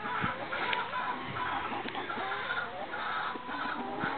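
A flock of domestic hens clucking, with many short calls overlapping one another.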